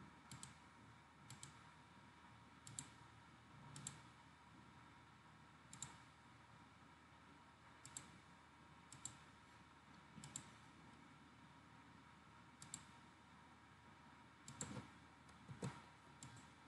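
Faint computer mouse clicks, about a dozen at irregular intervals, several in quick succession near the end, over faint steady background noise.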